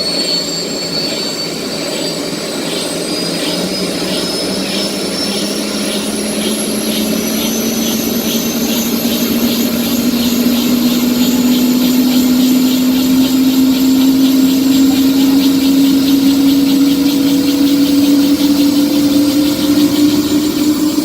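Helicopter starting up: the turbine engine's whine rises in pitch and the rotor's beat quickens while the sound grows louder over about the first ten seconds, then holds steady and loud.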